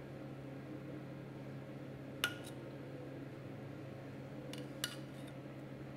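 A metal spoon clinks sharply twice, about two seconds in and again near the end, while sauce is spooned from a stainless steel saucepan onto a plate, over a steady low hum.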